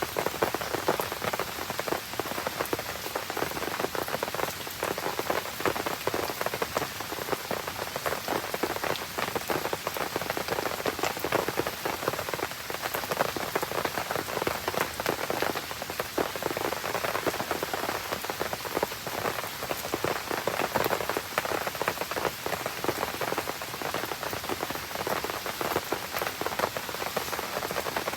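Steady rain falling, a dense, even patter of many small drop hits.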